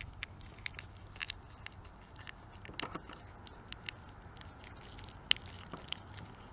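Split plastic cable loom (hard cable wrap) clicking and crackling as wires are pushed into its slit by hand: faint, scattered small clicks.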